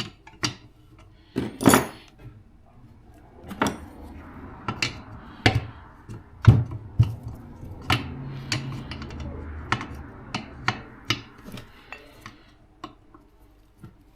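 Irregular metal clinks and knocks of tools and parts as a fastener is worked out of a motorcycle swing arm, with a stretch of softer scraping through the middle.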